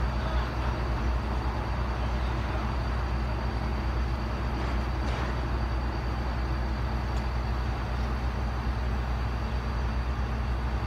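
Heavy diesel engine idling steadily, a low even hum with no change in speed.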